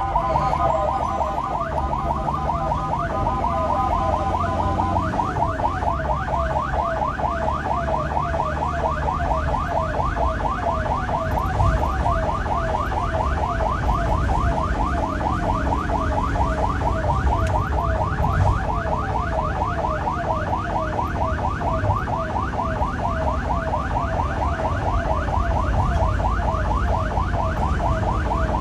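Ambulance's electronic siren sounding a rapid, repeating up-and-down sweep, changing pattern about five seconds in, over the low rumble of the engine and tyres.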